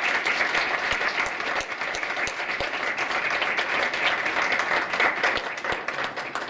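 Audience applauding: many hands clapping steadily at the close of a talk.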